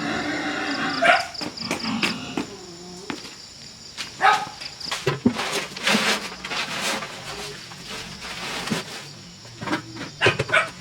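Insects, crickets or cicadas, chirping steadily and high-pitched, with scattered knocks and clatter of work throughout. A brief pitched call comes in the first second.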